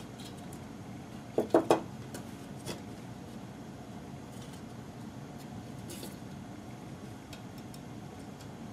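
Small clicks and knocks from handling the calculator's circuit boards. There are three quick knocks about a second and a half in and a fainter one soon after, over faint steady hiss.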